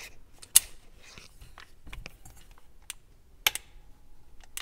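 A few sharp metallic clicks from the parts of an AR-15 lower receiver as it is handled and its controls are worked, with light handling noise between them; the loudest click comes about three and a half seconds in.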